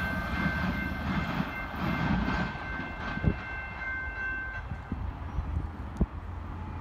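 A train rumbling as it moves away, fading, with a steady high ringing tone that stops about four and a half seconds in. Two sharp knocks come about three seconds in and near the end.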